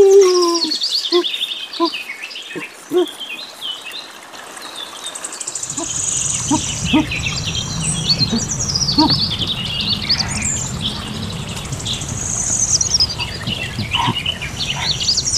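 Many small birds chirping and trilling, with quick, varied calls that overlap. A low, steady rumble of background noise comes in about six seconds in.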